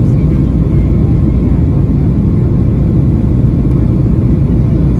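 Steady low rumble inside the cabin of a Boeing 737-800: the airliner's CFM56-7B jet engines and airflow, with no sudden bumps or changes.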